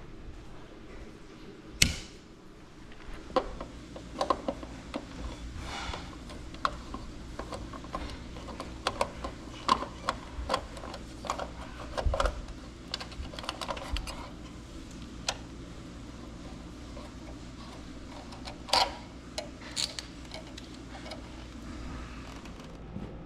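One sharp click about two seconds in, as a circuit breaker is switched off. Then irregular small clicks and metal taps from pliers, screws and wire connectors as the electric water heater's top junction box is opened and its wiring disconnected.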